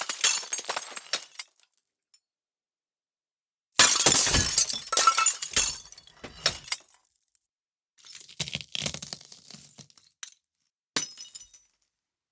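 A series of glass-breaking sound effects separated by dead silence. The tail of one crash fades out, a loud shatter comes about four seconds in with shards tinkling down, another crash follows about eight seconds in, and a short one comes near the end.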